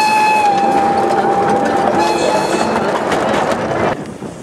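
Whistle of a 15-inch gauge steam locomotive, one long steady blast that sags slightly in pitch and stops about two seconds in, with a short second toot. The train runs on with carriage and rail clatter, which gives way near the end to quieter wind noise.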